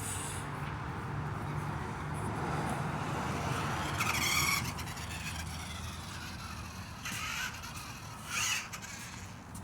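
RC car driving, its motor whirring and its tyres scuffing on the ground, with two short louder bursts about four and eight seconds in.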